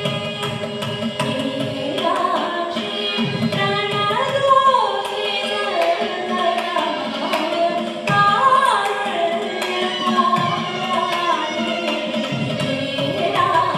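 Live Carnatic music: a woman singing with gliding ornamented phrases, accompanied by violin and mridangam drumming over a steady drone.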